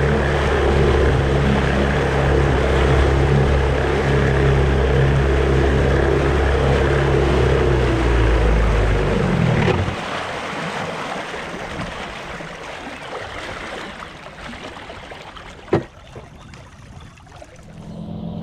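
Outboard motor running steadily, then sagging and dying about ten seconds in, leaving a quieter hiss of water and wind. The owner says something locked up in the lower unit, perhaps the shift linkage stuck in forward. A single sharp click comes near the end.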